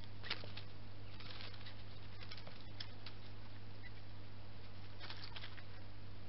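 European hedgehog moving over dry leaves: scattered light rustles and crackles in small clusters, a few seconds apart, over a steady low hum.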